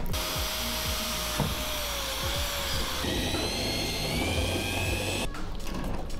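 Cordless drill boring through thin aluminium deck sheet at a piano hinge, its motor whining with the bit cutting metal. It stops abruptly about five seconds in.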